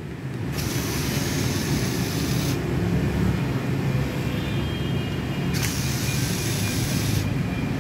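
Handheld electric screwdriver running in two spells of about two seconds each, with a hissing whine, as it backs screws out of a laptop hard-drive caddy. A steady low hum runs underneath.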